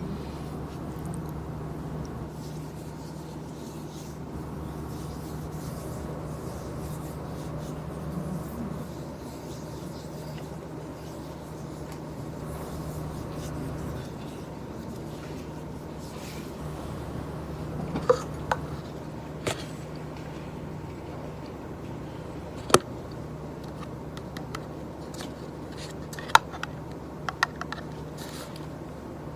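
Soft rubbing and handling sounds over a steady low hum, with a few sharp clicks or taps in the second half.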